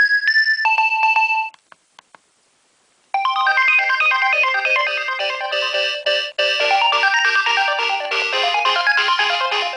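Nokia 2300 mobile phone ringtones: one ringtone melody ends about a second and a half in, and after a short silent gap with two faint clicks, a new ringtone starts, a bright melody with several notes sounding at once.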